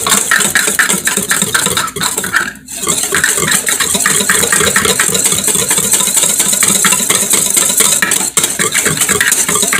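Wire whisk beating rapidly against a bowl in a quick, steady clatter as hot milk is whisked into beaten eggs and sugar to temper them. It pauses briefly a little under three seconds in.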